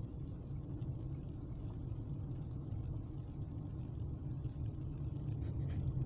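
Steady low rumble of a Kia Forte's engine and tyres heard from inside the cabin as it drives along a narrow paved road.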